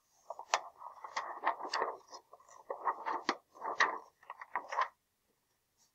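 Paper pages of a large picture book rustling as they are handled and turned, a run of irregular crackles and soft scrapes lasting about four and a half seconds.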